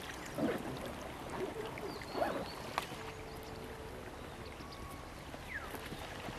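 Water splashing and lapping around a wooden dugout canoe being poled along a calm river, with a few soft splashes in the first half.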